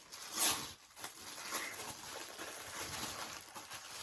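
Rustling and crinkling of gift packaging being handled, with one louder rustle about half a second in, then faint crackling.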